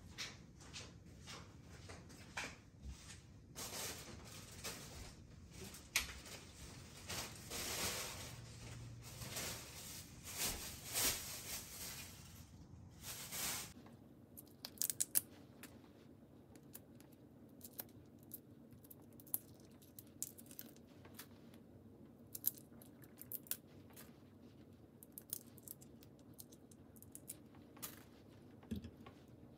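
Rustling and scraping noises for about the first half, then raw shrimp being peeled by hand: many small sharp cracks and crinkles as the shells come away.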